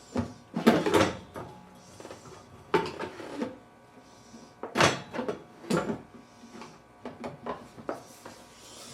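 Irregular knocks and clatter of an animatronic's parts being handled and pushed together while someone tries to line them up, loudest about a second in and again near the middle.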